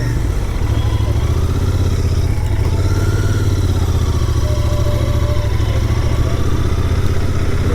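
Royal Enfield Continental GT 650's parallel-twin engine running steadily as the bike is ridden, building up during the first second and then holding an even note.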